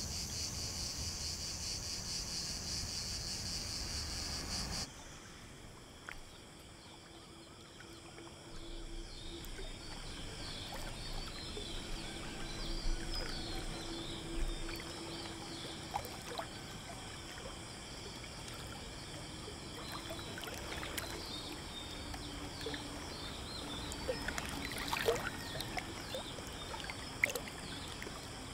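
Insects chirring in a dense, steady chorus in dry countryside, which cuts off abruptly about five seconds in. After it, quieter water sounds on still floodwater: small splashes, drips and lapping, with scattered faint chirps.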